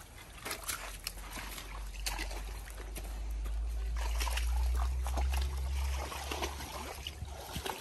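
White humped cattle wading and drinking in a shallow muddy pond: irregular splashing, sloshing and slurping of water. A low rumble swells in the middle and fades near the end.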